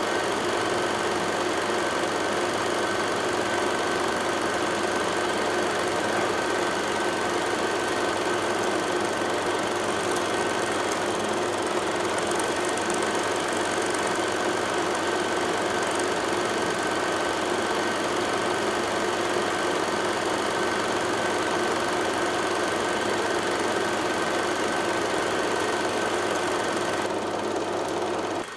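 Steady mechanical hum with constant tones over an even noise, dropping away suddenly just before the end.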